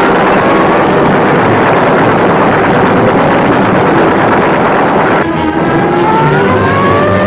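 A loud, steady rushing noise over orchestral film music. The noise drops away about five seconds in, leaving the strings' sliding melody.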